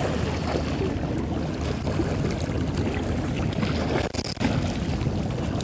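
Wind buffeting the microphone as a steady, uneven low rumble, with a brief sharp hiss a little past four seconds.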